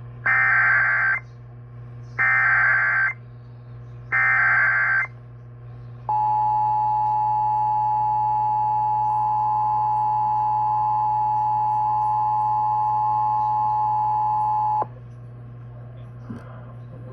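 Emergency Alert System broadcast over AM radio: three one-second bursts of SAME header data tones about a second apart, then the EAS two-tone attention signal held steady for about nine seconds and cut off suddenly. A low steady hum runs underneath.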